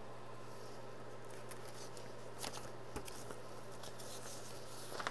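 Pages of a printed paper manual being turned over: soft rustling with a few short crisp crinkles, the sharpest about two and a half and three seconds in and another near the end, over a steady low hum.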